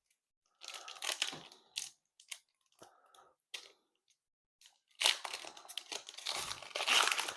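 Foil trading-card pack wrapper handled and torn open: a few short rustles, a near-quiet pause, then steady crinkling and tearing from about five seconds in.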